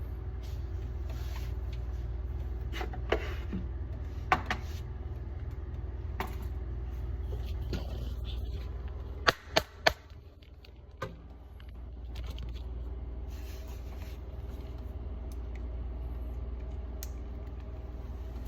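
A steady low hum with scattered sharp clicks and knocks, like parts being handled. Three knocks come in quick succession about halfway through, as the hum briefly drops away.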